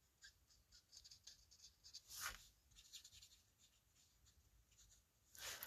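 Faint scratching of an alcohol marker tip stroked over a plastic embossing folder in short quick strokes, with one louder swish about two seconds in; the strokes stop after about three and a half seconds.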